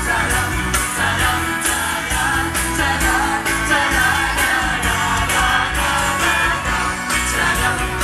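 Live pop band playing with two male singers singing into handheld microphones over a steady drum-kit beat, heard through the stage PA.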